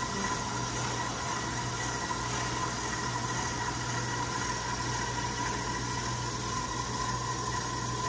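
Electric stand mixer driving a pasta roller attachment, its motor running at a steady speed with a low hum and a thin whine as a sheet of pasta dough feeds through the rollers.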